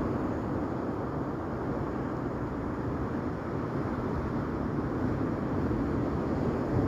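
Steady rumble of sea surf washing on a stony shore.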